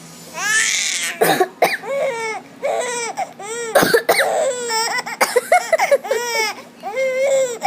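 A baby laughing hard in a rapid run of high-pitched, rising-and-falling laughs. An adult coughs several times in between, and the coughing sets the baby off.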